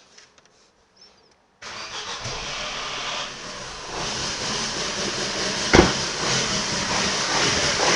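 Ford Focus II 1.6-litre, 115 hp petrol engine running, heard before a major overhaul. It comes in abruptly after near silence about one and a half seconds in and gets louder about four seconds in, with one sharp knock near six seconds.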